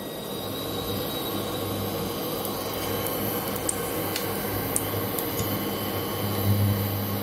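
Cooking oil poured from a bottle in a thin stream into an empty metal karai, a steady trickling noise that slowly grows a little louder, over a constant low hum.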